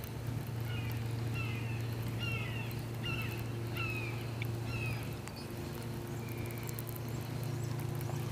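Electric trolling motor humming steadily, easing slightly about halfway through, while a bird gives a quick series of short, falling calls in the first half and one more call later.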